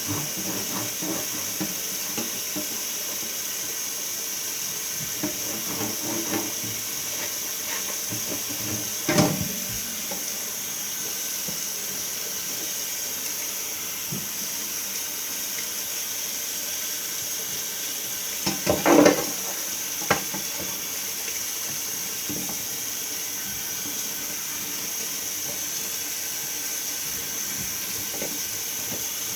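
Water running steadily from a tap into a sink while mini fridge parts are washed by hand, with a clattering knock about nine seconds in and a louder clatter of items against the sink around nineteen seconds.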